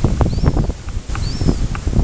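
Small birds calling, two short arched high chirps about a second apart, over loud close rustling and soft thumps.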